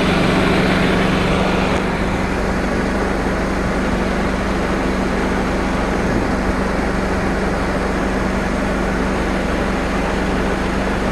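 Mercedes C230's 1.8-litre four-cylinder engine idling under the open hood with the AC compressor and fan running, a steady hum. A broader hiss in the first two seconds stops abruptly.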